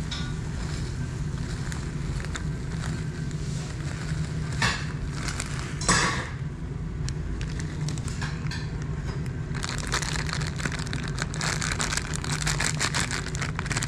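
Thin plastic food bags rustling and crinkling as food is tipped out of them, with a couple of short swishes midway and dense crinkling from about ten seconds in. A steady low hum runs underneath.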